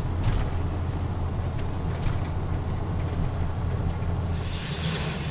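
A vehicle engine runs with a steady low rumble. A hissing noise swells near the end.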